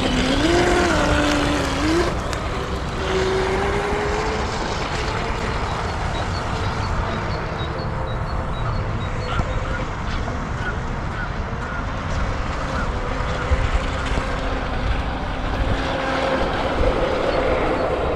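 Brushless motor of a VolantexRC Atomic SR85 RC catamaran running on the water on a 3S pack, its pitch rising and falling over the first few seconds and then steadier, under a heavy low rumble of wind on the microphone.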